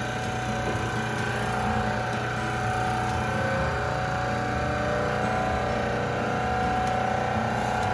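Hydraulic pump unit of a flexural and compression testing machine running steadily, a hum with a faint whine, as it loads a concrete beam sample in bending.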